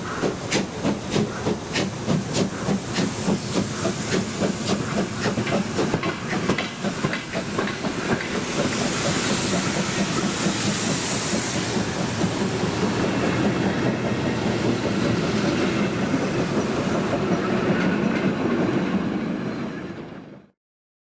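Steam locomotive working away with sharp exhaust chuffs about three a second and hissing steam from the cylinders. The beats give way to the steady rumble and clatter of passenger coach wheels on the rails, and the sound cuts off abruptly near the end.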